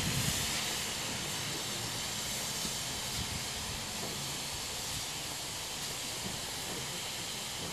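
Steady hiss of steam escaping from GWR 5700-class pannier tank locomotive No. 3650, with no exhaust beats.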